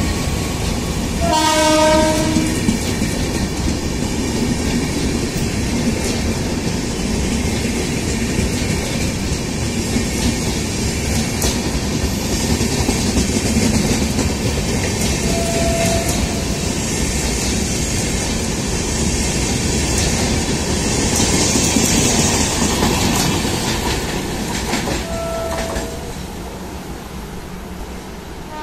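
Double-decker express coaches rolling past at speed: a steady rumble and rush of wheels on rail, with a short train-horn blast about two seconds in and two brief higher tones later on. The sound eases off in the last few seconds as the train draws away.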